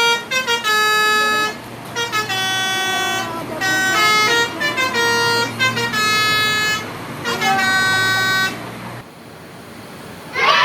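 Bus 'telolet' horn, a multi-tone musical horn, playing a quick melody of changing notes in several phrases with short breaks. It stops about nine seconds in.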